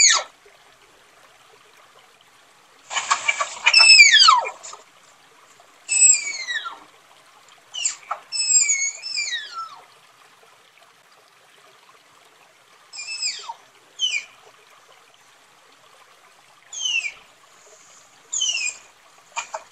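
Tapir calling: high-pitched whistling squeals that glide steeply downward in pitch, given in short bouts every second or few.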